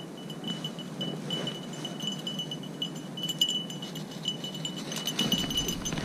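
A small bell on a running beagle jingling in quick, irregular taps with its strides, loudest midway as the dog passes close. Wind rumbles on the microphone near the end.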